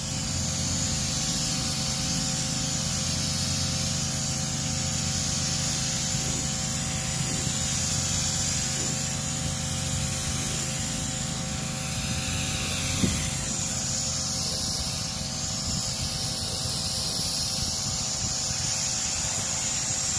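Pressure washer running steadily, its pump humming under the hiss of the water jet spraying onto a car's side panels, the hiss wavering as the wand sweeps back and forth. One short sharp click about thirteen seconds in.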